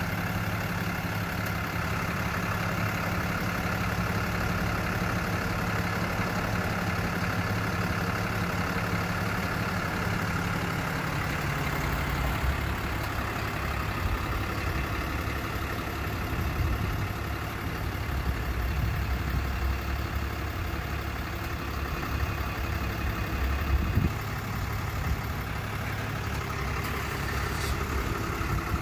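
Ram flatbed tow truck's engine idling steadily.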